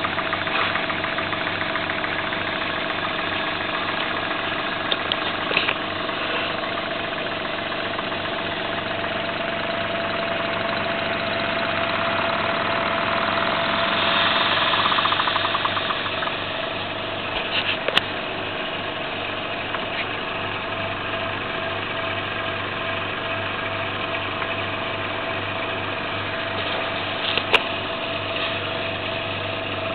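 Small homemade model spool-valve engine running steadily, a continuous rapid mechanical beat from the cylinder and spinning flywheel. It gets louder about halfway through, then settles back, with two sharp clicks later on.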